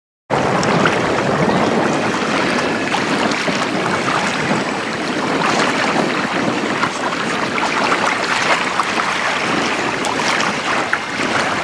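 Gusty wind buffeting the microphone: a steady, rough rushing noise with crackles, cutting in suddenly just after the start. No motor tone stands out from it.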